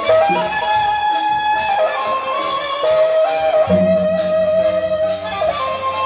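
Gendang beleq ensemble music: a bamboo flute (suling) plays a melody of long held notes over a steady cymbal beat.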